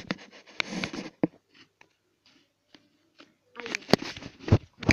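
Handling noise from the recording device being picked up and moved by hand: scattered clicks and rustles, a quiet stretch in the middle, then a denser run of knocks and rubbing near the end.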